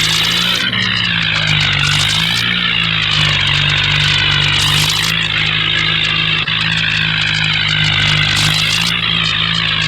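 A vehicle engine running steadily and loudly at an even speed, with a wavering whine above it.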